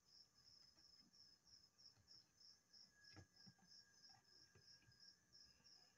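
Near silence, with a cricket chirping faintly in a steady, even run of high chirps, several a second. A faint tap about three seconds in comes from the spoon spreading tomato sauce on the bread.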